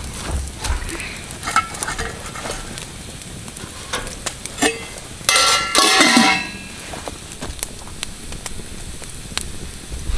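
Cooking over a campfire: a steady sizzle with scattered clicks of metal utensils. There is one loud scrape of metal on a pan, with a brief ringing, about five to six seconds in.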